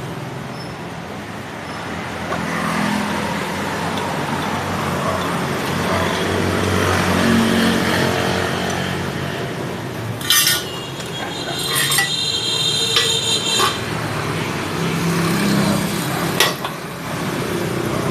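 Steady mechanical background noise, like traffic or a running machine, with a few sharp metallic clinks that ring briefly, clustered about ten to fourteen seconds in and once more near the end.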